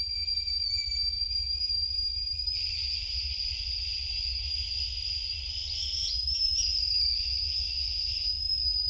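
A steady high-pitched whine with a hiss around it, over a constant deep rumble; the whine wavers briefly about six seconds in.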